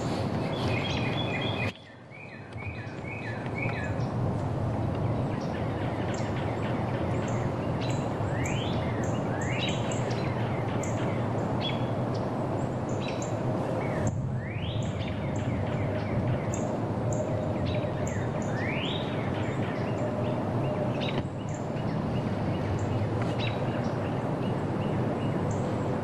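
A mixed flock of golden-crowned kinglets and yellow-rumped warblers calling: many high, thin chips and short notes, with quick upward-sliding notes now and then. Steady outdoor background noise runs underneath.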